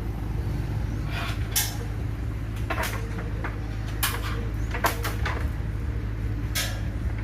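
A steady low hum with about seven sharp knocks or clicks at irregular intervals.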